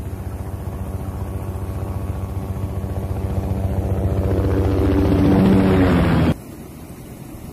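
Helicopter rotor chopping, a steady rhythmic beat with engine whine. It grows louder as the helicopter comes in close, then cuts off suddenly about six seconds in.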